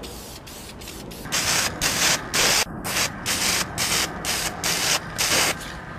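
Aerosol spray can of primer hissing in a quick series of short bursts, about a dozen in some four seconds, as a motorcycle wheel is given a coat of primer.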